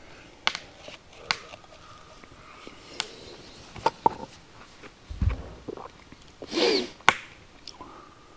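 Wood fire crackling, with sharp pops scattered irregularly, the dry firewood burning on its own. A low thump comes about five seconds in and a short breathy sound near the end.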